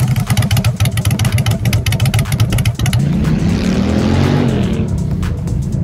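Honda Shadow VLX's V-twin engine revving close up in rapid, sharp exhaust pulses, then running on with a smoother rise and fall in pitch a few seconds in as the motorcycle is ridden.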